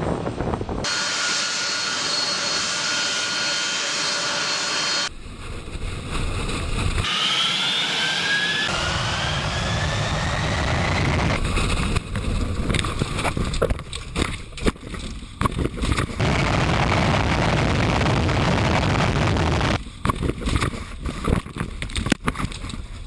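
Boeing 747 jet engines running with a steady high whine, then spooling up with rising whines, followed by a heavy rush of jet blast. Sharp knocks and rattles come from inside a car caught in the blast.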